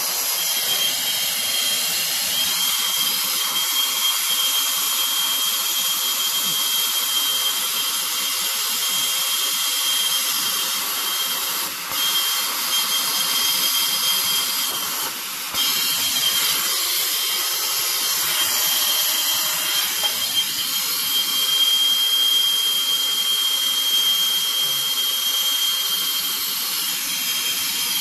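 Hand torch flame hissing steadily as it heats a copper sweat joint for soldering, with a thin high whistle running through it; the hiss dips briefly twice near the middle.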